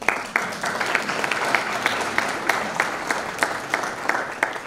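Audience applauding, with one nearby clapper's sharp claps standing out at about three a second. The applause dies down near the end.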